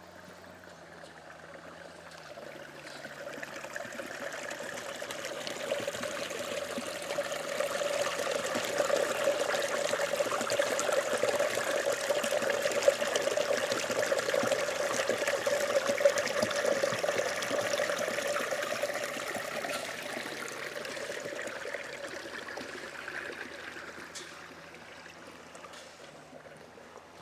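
Water trickling and splashing in a small roadside irrigation ditch, a steady rushing that grows louder, holds, and then fades away again as the camera passes by it.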